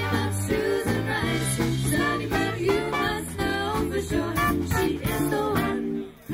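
Live swing band: women's voices singing over electric bass, guitar, drums, trombone and saxophones, with a brief break in the music near the end.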